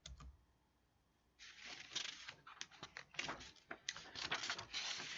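A quick run of irregular clicks and rustling, starting about a second and a half in, like small objects or paper being handled close to the microphone.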